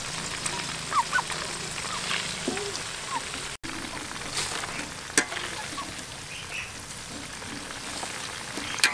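Grasshoppers deep-frying in hot oil in a wok, a steady sizzle. A few short high chirps sound in the first half, and there is one sharp click about five seconds in and another near the end.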